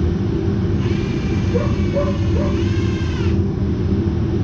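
Cordless drill driving a self-drilling screw through plastic garden edging into a car's front bumper, running for about two and a half seconds and stopping abruptly, with some squealing tones as it bites. A steady low rumble runs underneath.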